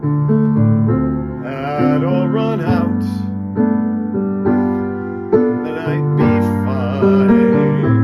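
Slow piano ballad: sustained piano chords changing every second or so, with a voice holding long, wavering notes over them twice.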